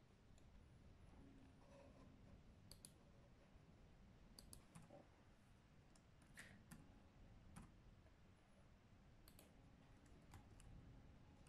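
Faint, scattered clicks of laptop keys pressed by latex-gloved fingers, a second or more apart with quiet between them.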